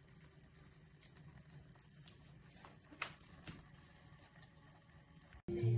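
Ultrasonic cool-mist humidifier running quietly, with faint water dripping and patter and scattered small clicks. Near the end it cuts suddenly to music.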